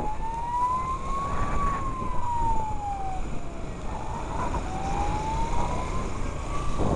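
Fire engine siren wailing: a slow rise and fall in pitch, climbing for about two and a half seconds and falling for about as long, then climbing again. Under it is the low rumble of a moving vehicle.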